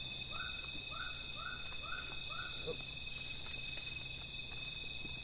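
Night forest chorus of insects trilling steadily at several high pitches. Over it, in the first half, comes a run of five short animal calls about half a second apart.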